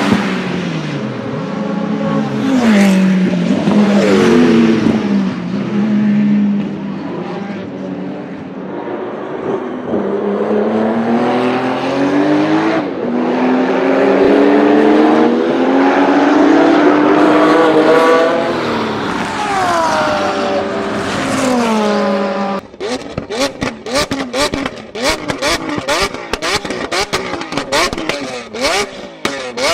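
A performance car's engine revving hard, its pitch climbing and dropping several times. About 23 seconds in it gives way to the exhaust popping and banging in a rapid string of sharp cracks.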